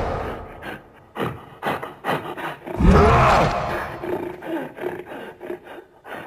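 Ape-monster cartoon sound effects: a roar trails off at the start, then a few short grunts, a loud roar about three seconds in, and quieter grunts after it.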